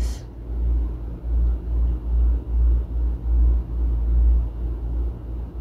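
Braun food processor's blender running, blending milk, cocoa, coffee and ice, heard as a low motor rumble that swells and fades about twice a second.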